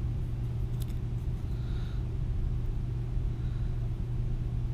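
Steady low background hum of room or ventilation noise, with a faint click about a second in.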